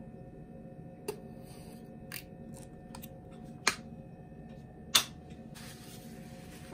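Several sharp clicks and knocks from handling a plastic flip-top squeeze bottle and bread on a wooden chopping board, the two loudest about three and a half and five seconds in, over a faint steady hum.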